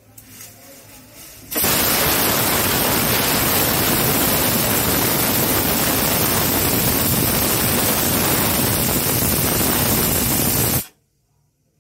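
Aluminium pressure cooker whistling as steam escapes under its whistle weight. A faint hiss for about a second and a half gives way to a loud, steady rush of steam for about nine seconds, which cuts off suddenly. The whistle is the sign that the cooker has reached full pressure.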